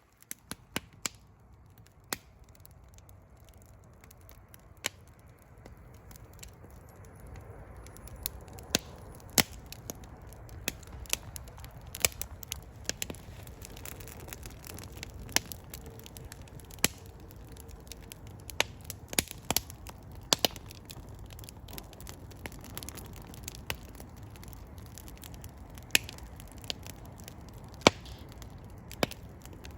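Fire burning in a fireplace: sharp, irregular crackles and pops over a low steady rush of flames. The rush grows louder after the first several seconds.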